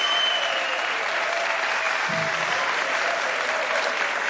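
Studio audience applauding steadily, with music playing underneath.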